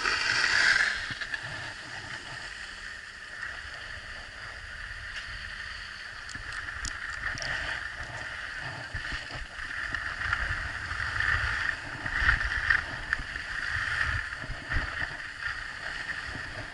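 Steady scraping hiss of gliding over packed snow on a moving action camera, with wind rumbling on its microphone; it is loudest in the first second and swells again in the second half.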